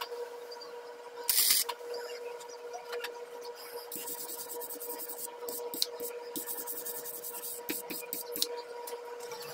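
Power-tool work on a steel pipe clamped in a bench vise, throwing sparks. There is a short, loud burst about a second and a half in, then a scratchy, rasping stretch with small ticks from about four seconds on, all over a steady machine hum.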